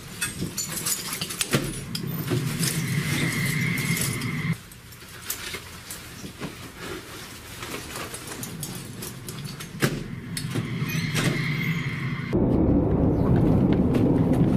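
Hurried footsteps and the clatter and jangle of carried gear as people run, with a high tone sounding twice for about a second and a half each. A loud low rumble starts near the end.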